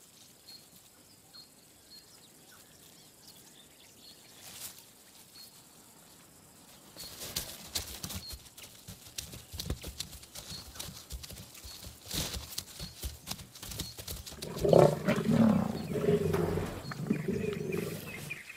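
Lions crashing through dry brush, with a run of snapping and crackling, then loud, low lion growling and snarling for about three seconds near the end as they pull down a young giraffe.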